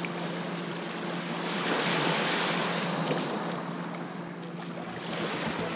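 Small waves washing up on a sandy beach, the wash swelling about a second and a half in and then easing off, over a steady low hum.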